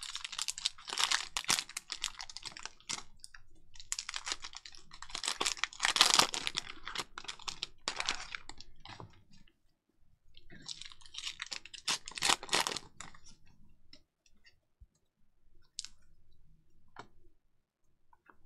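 Plastic cello wrapper of a Panini Prizm football card pack crinkling and tearing as it is opened by hand, in several bursts of crackling. Near the end it gives way to a few faint clicks.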